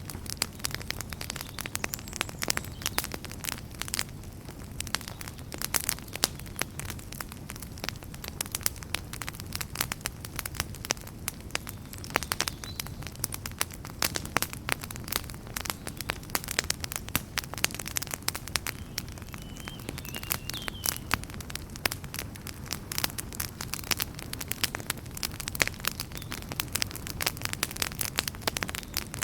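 Wood campfire crackling, with dense, irregular snaps and pops over a steady low rumble of the flames.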